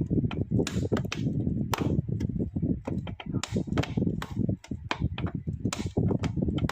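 Irregular knocks and clatter, several a second, over a steady low rumble.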